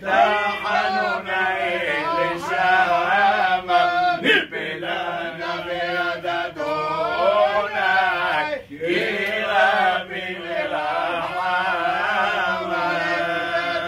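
Male voice singing a Hebrew liturgical song (piyyut) in long, ornamented lines that waver in pitch, breaking off briefly about two-thirds of the way through.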